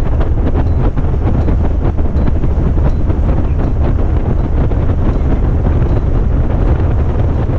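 Heavy wind buffeting the microphone of a fishing boat running under way, over the steady sound of the boat's engine.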